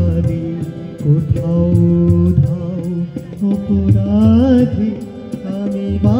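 Live harmonium and tabla playing a Bengali song, the harmonium holding steady notes over repeated tabla strokes, with a voice singing a short bending phrase about four seconds in.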